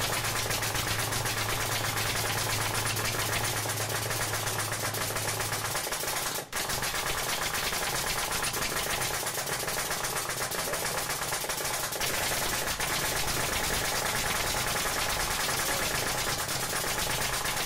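Nail gun firing nails in rapid succession, a fast continuous run of shots with a brief break about six and a half seconds in.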